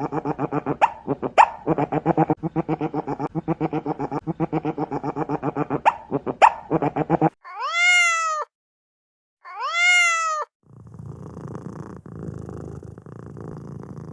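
A cat: a long run of rapid, even pulses, then two meows that rise and fall in pitch, then a rough, noisy low sound.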